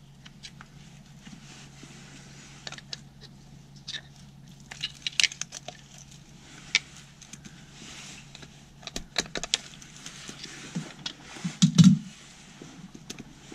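Scattered metallic clicks and clinks of tools and parts being handled while a machine part is refitted, over a steady low hum. A brief low thump near the end is the loudest moment.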